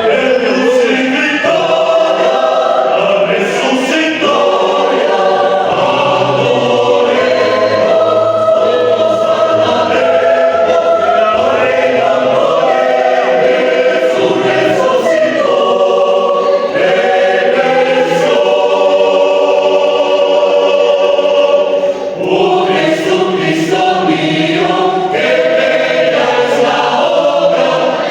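A choir singing slow, held chords, with a short break about three quarters of the way through before the voices come back in.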